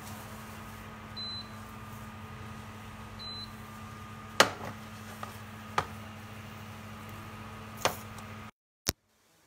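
Steady electrical hum with two short high electronic beeps in the first few seconds, then three sharp knocks of a spatula against a metal pan. The sound cuts out abruptly near the end.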